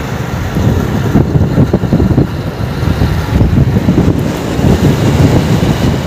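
Wind buffeting the microphone in an irregular low rumble over the road noise of a motorcycle riding along.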